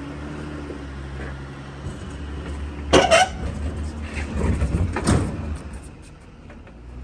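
Jeep on a rocky off-road trail: low engine hum, with a loud sharp knock about three seconds in and more knocking and scraping around four to five seconds, as the vehicle works over rock.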